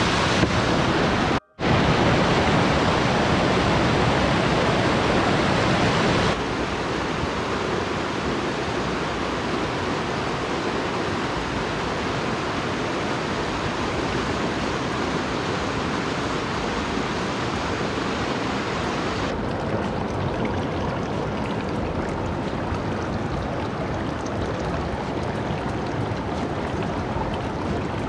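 Rushing water of a small mountain creek and its waterfall: a steady, even rush. It drops out for a moment about a second and a half in, steps quieter around six seconds in, and turns duller again near twenty seconds.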